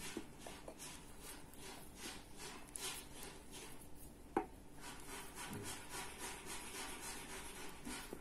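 Knitting needles and yarn rubbing as stitches are purled one after another: faint, scratchy swishes that repeat in a steady rhythm. One sharper click is heard about halfway through.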